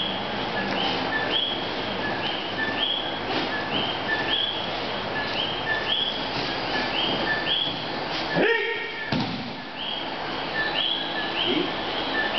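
A high, two-pitched chirp repeating evenly about twice a second, over soft thuds of bodies and feet on padded aikido mats during throws and falls.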